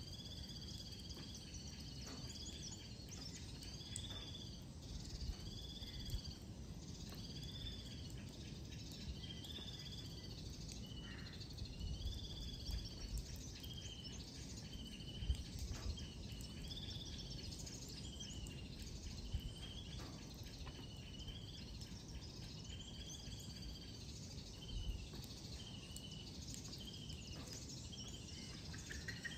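A high, arching chirp call, repeated about once a second, from a bird or insect in the surrounding vegetation, over a low steady background rumble.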